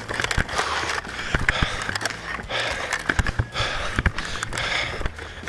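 Heavy breathing close to the microphone as the player moves, with footsteps, gear rustle and scattered short clicks.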